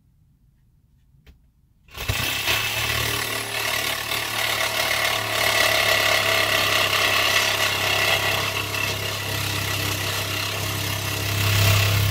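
Power drill starting about two seconds in and boring into the shed's wooden wall, running steadily under load and getting louder near the end.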